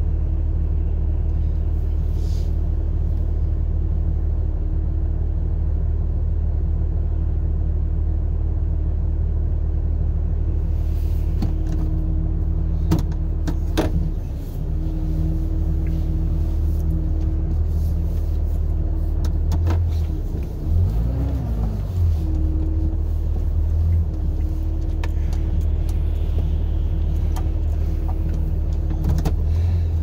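Vehicle engine running at low speed, a steady low hum heard inside the cabin. About twenty seconds in its pitch sags briefly and recovers, and a few light clicks and knocks come and go.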